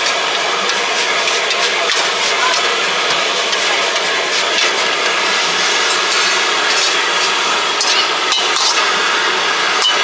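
Metal spatula scraping and knocking against a wok as rice noodles are stir-fried, over a steady roaring hiss from the gas burner and frying. Sharp knocks stand out about eight seconds in and again near the end as the wok is tipped and scraped out.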